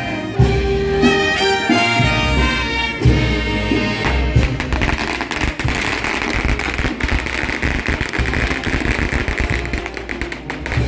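Brass band playing, the horns holding sustained notes. About four seconds in the horns drop out and a dense crackling rattle takes over for most of the rest.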